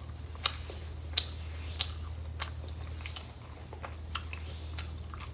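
Close-miked chewing of a crunchy beef taco, with wet mouth clicks and crunches about every half second over a steady low hum.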